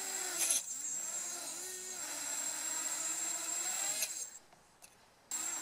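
DYS 250 quadcopter's brushless motors spinning up and down, a whine that rises and falls in pitch with a steady high-pitched tone over it, as the quad fails to lift off; the owner suspects motor no. 2, front right. There is a knock about half a second in, and the motors cut out about four seconds in and start again a second later.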